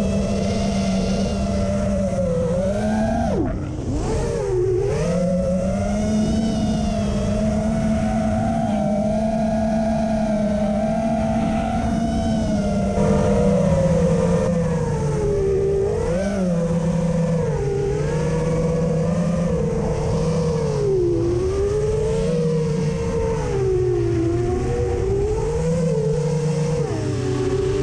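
FPV quadcopter's brushless motors and propellers whining, heard from the onboard camera. The pitch dips and climbs again and again as the throttle changes, with several sharp dips.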